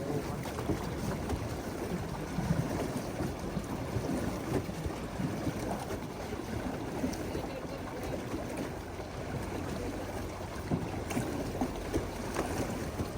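Wind rumbling on the microphone over water moving around a small boat, with a few light knocks.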